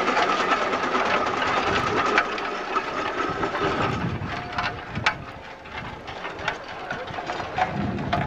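Scale-model steam traction engine running as it drives along, with a rapid exhaust beat and hissing steam; it grows quieter about halfway through as it pulls away.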